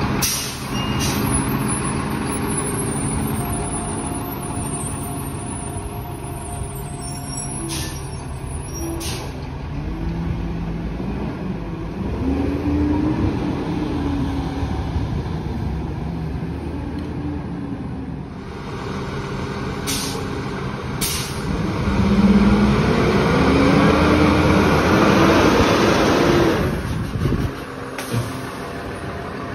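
Split-body Lodal garbage truck with its engine running and revving up and down, with several short air-brake hisses; a louder stretch near the end cuts off suddenly.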